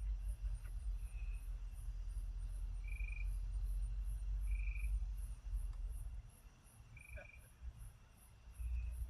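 Crickets chirping in a steady high pulse about three times a second, with a short, higher-pitched buzzy note repeating every second or two. A low rumble runs underneath and eases off for about two seconds near the end.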